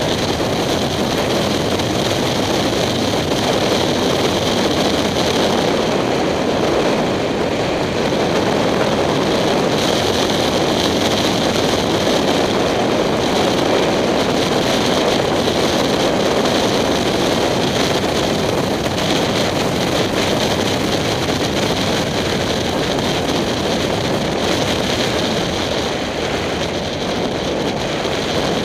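Steady wind rush on a helmet-mounted camera with the 2007 Kawasaki Ninja 250's parallel-twin engine running at an even cruise.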